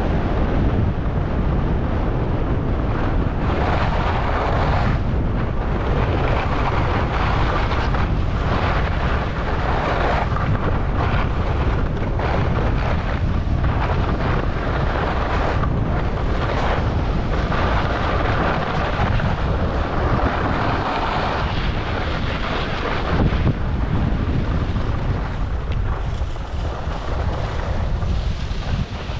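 Wind buffeting a GoPro 11's microphone while skiing downhill, over the hiss and scrape of skis on groomed snow that swells and fades with the turns.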